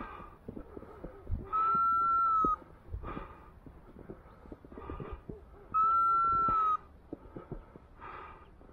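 Hunting dog's beeper collar sounding a steady, single-pitched electronic beep about a second long, twice, about four seconds apart. This is the periodic run-mode beep that tells the hunter the dog is on the move. Soft crunching steps in snow sound between the beeps.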